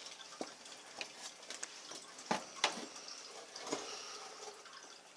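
Scattered light clicks and knocks of hands and tools working on a washing machine's parts, about half a dozen irregular taps, the sharpest two close together a little past the middle, over a faint steady hiss.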